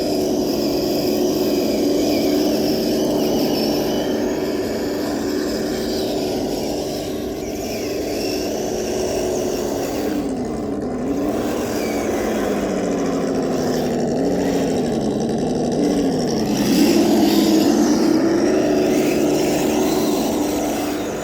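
Kyosho Blizzard RC tracked vehicle's electric drive whining steadily as it runs. Midway the pitch dips and rises several times as it slows and speeds up, then it settles back to a steady, slightly louder whine.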